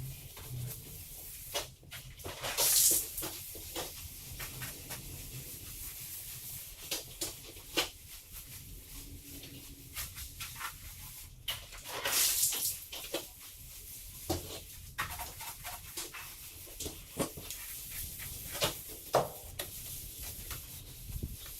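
Cleaning work on dairy equipment: scattered knocks and clatter, with two brief hissing bursts, about three and twelve seconds in.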